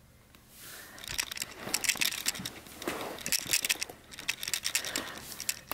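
Handling noise: a run of irregular clicks and rustles as a small plastic action figure is set in place on carpet among other plastic figures, with the camera being moved. It starts about half a second in.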